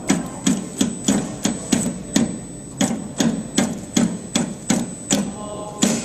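Packing machine clacking in quick, regular strokes, about three a second with a short pause midway, as it is jogged forward; a faint steady high whine runs underneath.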